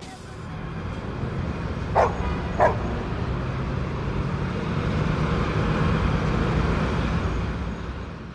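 A dog barks twice, short and sharp, about two seconds in and again just after, over a steady low rumble of ambient noise that fades out near the end.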